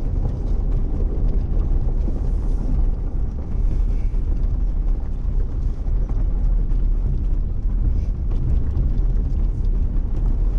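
Jeep driving slowly along a dirt trail: a steady low rumble of the engine and tyres rolling over dirt and gravel.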